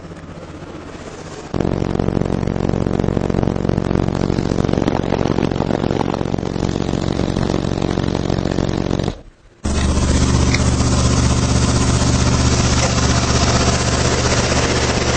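Four Alpine Type-R 12-inch subwoofers in a ported enclosure playing low bass test tones, heard as a loud, steady buzz. It starts sharply about a second and a half in, cuts out briefly around nine seconds, then comes back a little louder, reaching about 119 dB on an SPL meter.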